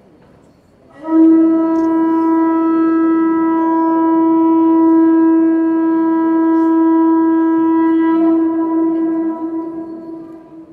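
Conch shell trumpet blown in one long steady note, starting about a second in and fading away near the end.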